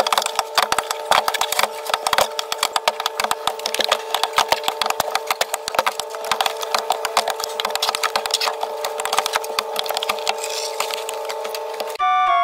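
Wooden fish crates knocking and scraping against each other and the truck's cargo floor as they are loaded and shifted, a dense run of irregular knocks, over a steady mechanical hum. A short musical jingle starts near the end.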